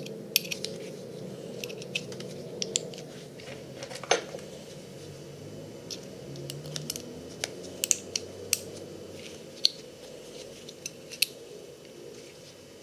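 Metal parts of a steel parachute hook being handled and fitted together by gloved hands: scattered light metallic clicks and taps, one about four seconds in with a brief ring, over a steady low hum.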